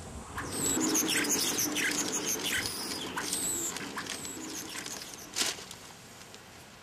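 Small birds chirping and twittering in quick, high, downward-sweeping calls that fade out after about five seconds, with one brief louder click about five and a half seconds in.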